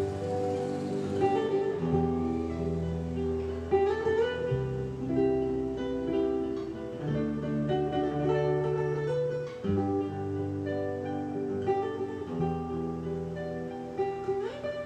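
Background music: acoustic guitar playing sustained notes and chords.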